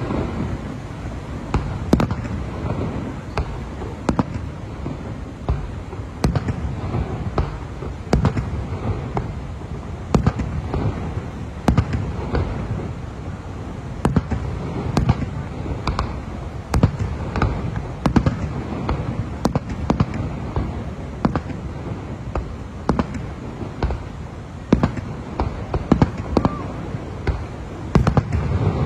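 Aerial fireworks shells bursting in a continuous display, a sharp bang every second or so over a steady low rumble.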